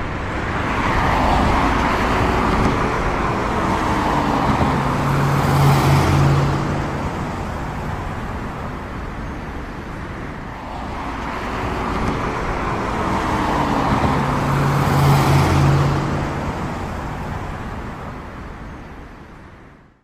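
Road vehicle driving past: a swell of traffic noise with a gently falling engine tone. The same pass-by comes again about nine seconds later, and the sound cuts off suddenly at the end.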